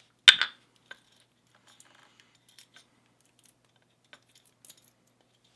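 Small metal padlock parts knocking together: one sharp metallic clack about a third of a second in, then scattered faint ticks, as the lock's plug is pushed out with a follower and its parts are handled.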